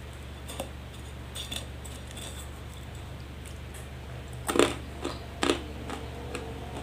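Crunching a piece of dry, uncooked instant noodle block: a few light crackles as it is broken off, then loud crunches about four and a half seconds in and again a second later. A steady low hum sits under it all.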